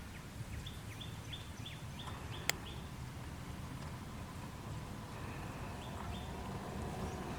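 A bird calling in a quick series of short, high, falling chirps, about three a second, with a second short run near the end, over a steady low rumble of outdoor ambience. A single sharp click about two and a half seconds in.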